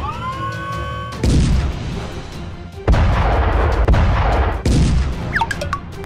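Added cartoon battle sound effects for a toy tank's shots: a rising whistle, a boom about a second in, then a long loud explosion blast from about three seconds, with short chirps near the end, over background music.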